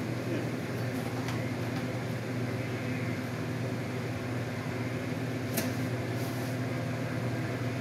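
Steady low mechanical hum of an appliance or fan running in the room, with a short click and a brief rustle about five and a half seconds in from the cable being handled.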